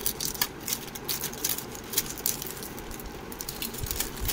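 Plastic courier mailer bag crinkling and crackling as hands tear and pull open its sealed end: an irregular run of short, sharp crackles.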